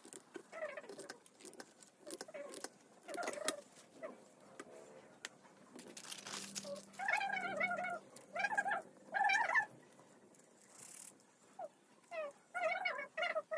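A domestic cat meowing repeatedly: short, bending calls with pauses between them. A brief rustle comes near the middle.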